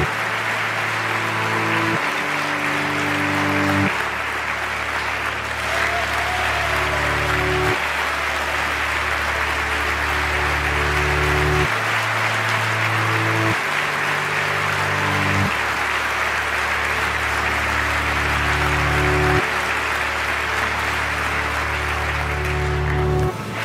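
A large audience applauding steadily, layered with slow ambient music of held low chords that change every few seconds. The applause drops out briefly near the end.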